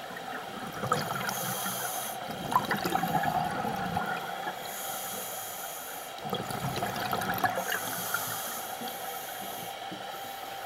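Scuba diver breathing on a regulator underwater: bursts of exhaled bubbles about every three seconds, three of them plus the start of a fourth near the end, over a steady hum.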